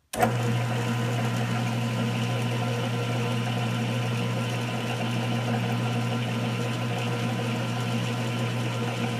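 Small metal lathe switched on at the start and then running steadily, its three-jaw chuck spinning: a steady low hum with fainter whining tones above it.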